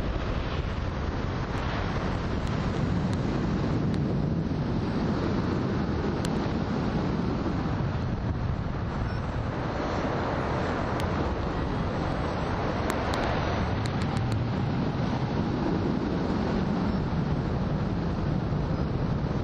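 Steady rush of wind over a camera microphone mounted on a hang glider in flight, the airflow buffeting the mic as the glider descends toward its landing.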